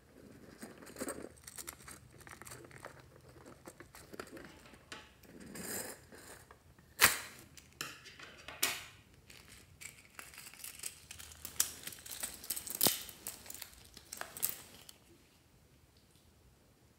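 A rubber balloon handled and squeezed over a glass dish of slime, with crinkling noises and a few sharp clicks, the loudest about seven seconds in, as small beads are pushed out of it into the dish. The handling stops after about fifteen seconds.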